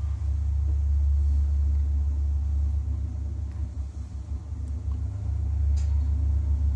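Schindler S-Series passenger lift car travelling between floors: a steady low rumble of the moving car.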